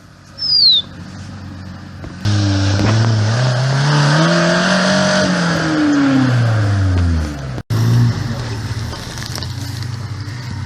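Off-road 4x4's engine revving up under load for a few seconds and then dropping back, with a heavy layer of noise over it. A short high squeak sounds near the start. After a brief cutout the engine settles to a steady low run.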